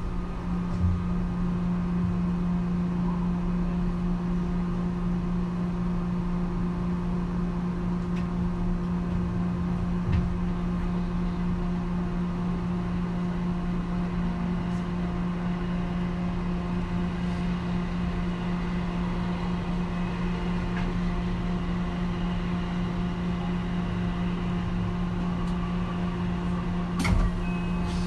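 JR West 223 series 3000 electric multiple unit standing at a platform with its equipment running: a steady electrical hum on one low tone with a fainter tone above it, unchanging in pitch, so the train is not moving.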